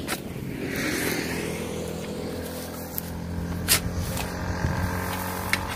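An engine running steadily at an even pitch, with a few sharp knocks.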